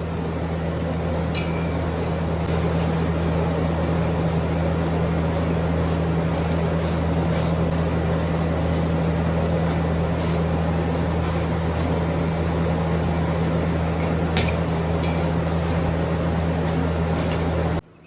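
Steady, loud hum of milk-house dairy machinery with a broad rushing noise, and a few light metallic clinks as parts are handled; it cuts off suddenly near the end.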